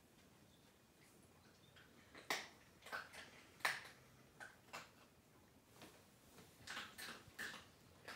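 Large paper bag crinkling in short, irregular crackles as a cat and a small dog shift about inside it, the loudest a little before halfway.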